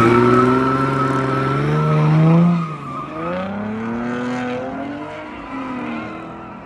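Ford Mustang launching into a slide, tyres squealing: the engine revs climb for about two and a half seconds, drop, then rise and fall again as it drifts away.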